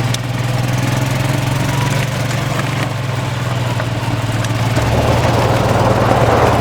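Gas golf cart engine running steadily as the cart drives along; its note shifts lower about five seconds in, and a rushing noise grows louder near the end.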